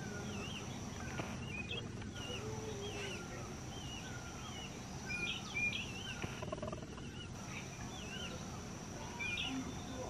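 A bird calling over and over with short, wavering notes, about one every three-quarters of a second, with softer falling notes between them, over a steady high-pitched hum.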